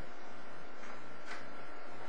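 Steady hiss of the recording with a faint constant electrical hum in it, and two short soft rushes of noise about a second in.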